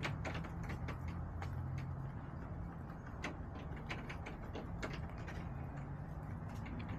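Chickens pecking, giving quick irregular sharp taps, several a second, over a steady low hum.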